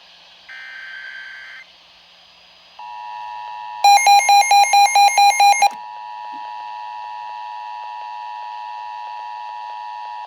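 Emergency Alert System tones: a brief data-burst warble, then the steady two-tone attention signal. A loud rapid beeping, about five beeps a second, sounds over it for about two seconds.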